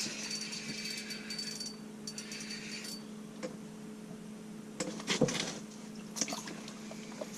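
Quiet handling of a freshly caught crappie and the lure: a few light clicks and wet knocks, about five seconds in the most, over a steady low hum.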